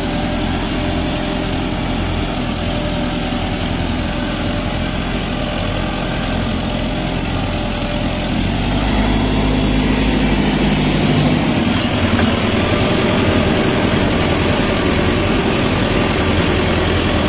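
Mahindra Novo 755 DI tractor's four-cylinder 3800 cc diesel engine running steadily while pulling a cultivator through the soil, getting somewhat louder about halfway through.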